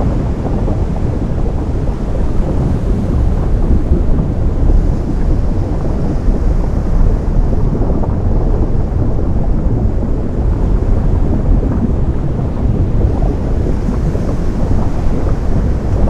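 Steady, low-pitched rush of ocean surf meeting lava, with no distinct breaks or separate events.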